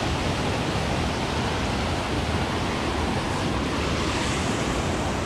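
A steady, even rushing noise, like wind or moving water, with no separate splashes or knocks standing out.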